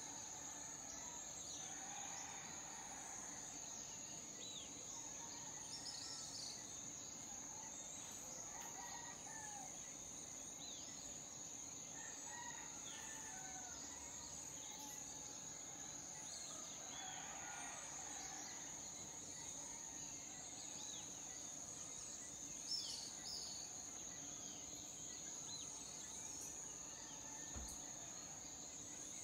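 Tropical dawn ambience: a steady high-pitched insect drone, with scattered bird chirps and a rooster crowing now and then.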